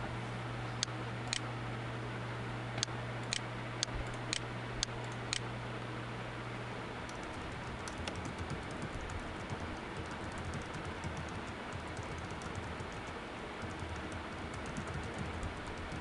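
A handful of sharp single clicks in the first five seconds, then quick, continuous typing on a computer keyboard.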